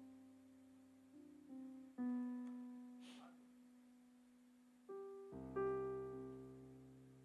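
Soft keyboard chords, struck three or four times and each left to ring and slowly fade.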